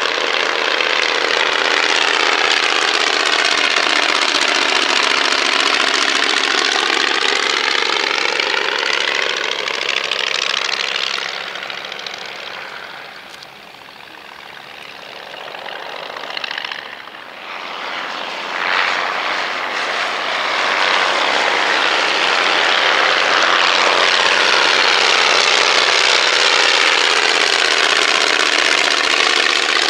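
Piston engines of vintage propeller aircraft flying low past, a steady drone with sweeping changes in tone as they pass. It fades about twelve seconds in, then a second close pass builds back to full loudness from about twenty seconds.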